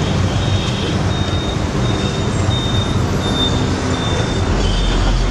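Steady roadside traffic noise with a low rumble, and a deeper low drone joining near the end.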